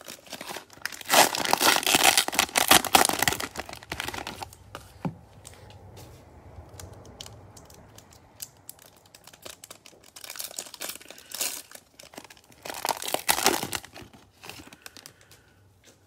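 A Prizm baseball cello pack's wrapper crinkling and tearing as it is ripped open by hand. It comes in loud crackling bursts: about a second in for three seconds, then again around ten and thirteen seconds in, with softer rustling between.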